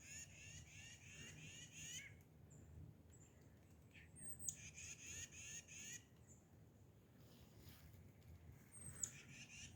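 Faint small songbirds calling: two rapid trills of quickly repeated high chirps, with a few short, thin, very high notes between them.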